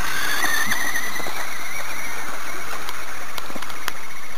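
Electric motor of a Tamiya Mad Bull RC buggy whining as it drives over grass, its pitch wavering with the throttle and fading after about a second and a half as the car moves away. A few sharp clicks come near the end, over a steady hiss.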